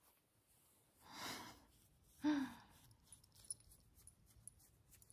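A woman's long breathy sigh about a second in, followed by a short, loud voiced sound, then faint light clicks and ticks.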